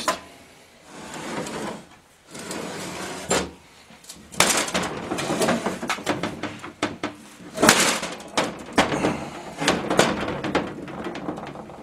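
Rag rubbing and scattered knocks and clunks as hands work around an SM465 transmission case on a workbench, with the sharpest knock nearly eight seconds in.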